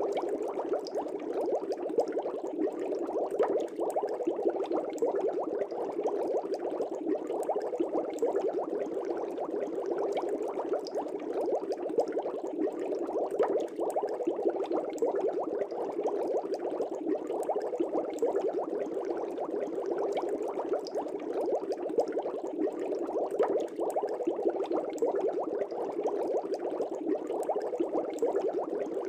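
Air bubbles rising and bubbling in an aquarium fish tank, a steady dense bubbling with many small pops.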